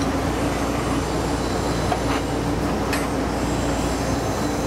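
Steady mechanical drone of shop machinery, even and unchanging, with a low hum and a steady tone in it. Two light clicks near the middle come from the steel bend coupon being handled.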